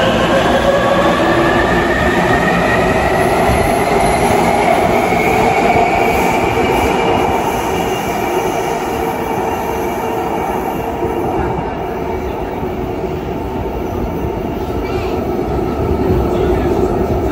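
C321 metro train accelerating away from the platform: its electric traction motors whine in several tones that glide steadily upward in pitch over the first few seconds, over rumbling wheel and running noise. The sound then fades as the train goes into the tunnel.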